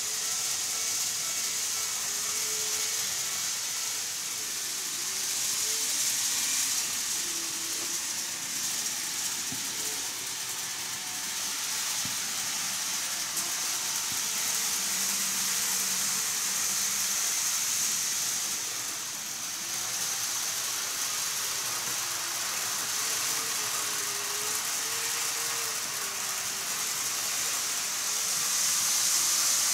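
N-gauge model train running on the layout's track: a steady rolling hiss of small wheels on rails, with a faint motor hum that wavers up and down in pitch.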